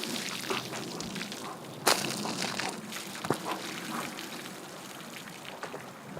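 Liquid sloshing and pouring, with scattered small clicks and one sharp knock about two seconds in.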